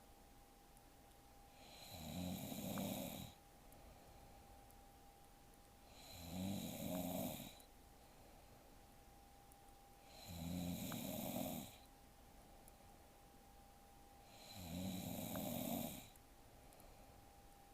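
A woman snoring in her sleep, four snores about four seconds apart, each lasting a second or so, with quiet between them.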